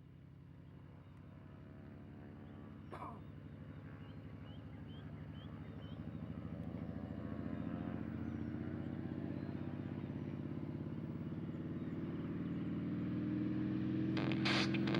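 Cessna 207 Turbo Skywagon's piston engine running steadily and growing louder throughout, with a single sharp click about three seconds in.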